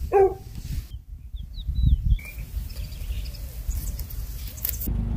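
A short animal call just after the start, then a few quick high bird chirps, over a low outdoor rumble such as wind on the microphone.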